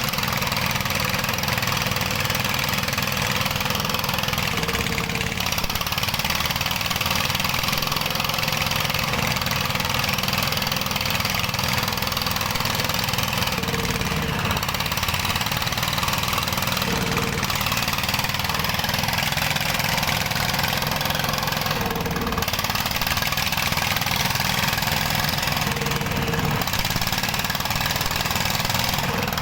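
Dongfeng ('dompeng') diesel engine of a gold-mining rig running steadily and loudly without a change in speed.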